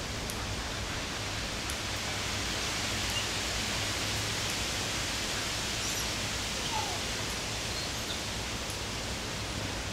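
Steady outdoor background noise, an even rushing hiss, with a few faint short chirps scattered through it.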